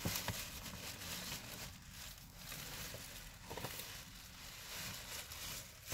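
Cardboard cereal box and tissue paper rustling and scraping as a hand rummages inside the box, with small irregular clicks and crinkles.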